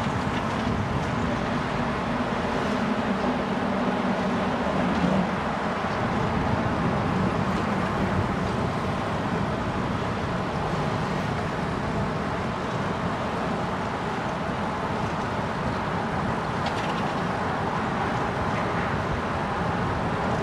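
Steady city street traffic: vehicle engines and tyre noise, with a low engine drone in the first five seconds or so.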